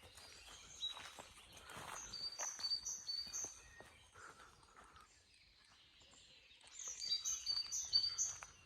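A songbird singing two short phrases of four or five repeated high, down-slurred notes each, one about two seconds in and one near the end, over scattered faint rustles and clicks.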